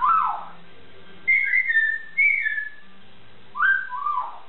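Hill myna whistling in short, clear notes: a falling note at the start, two higher notes about one and two seconds in, and a pair of notes that rise and then fall near the end.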